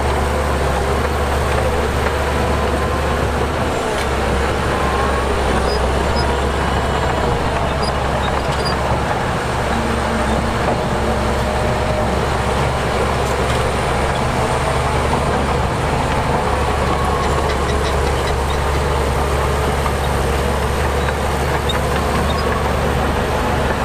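Heavy diesel earthmoving machinery running steadily, a deep engine rumble whose pitch drifts slightly up and down.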